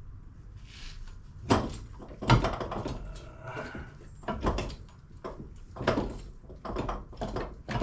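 Irregular metal clunks and knocks of the front suspension parts, the coilover strut and steering knuckle, being shoved and levered into line to fit the bolts, about half a dozen over the stretch, the loudest a little after two seconds in.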